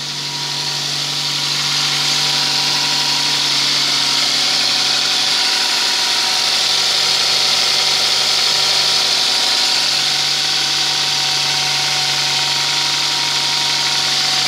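Kia cee'd 1.4 petrol four-cylinder DOHC 16-valve engine idling steadily, rising a little in loudness over the first couple of seconds. It runs smoothly with no vibration after being restarted on a newly fitted battery.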